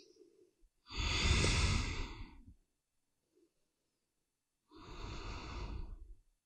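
A woman breathing audibly while holding a forward fold: two long, slow breaths, the first about a second in and louder, the second near the end and softer.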